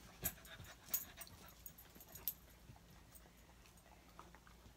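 A dog panting faintly, with a few sharp light clicks and taps, the loudest in the first second and one more about two seconds in.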